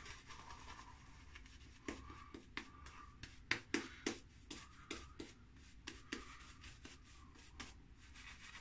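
A badger shaving brush working a lather: faint swishing, then a run of short, sharp brush strokes at roughly two a second, starting about two seconds in and stopping near the end.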